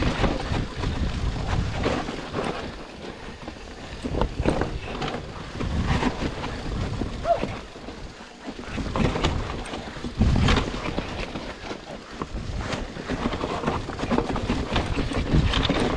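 Bicycle ridden over a rough trail: wind gusting on the microphone, with frequent irregular knocks and rattles from the bike.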